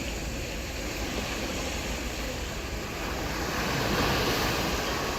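Ocean surf on a beach: a steady rush of waves that swells louder as a wave breaks about three to four seconds in.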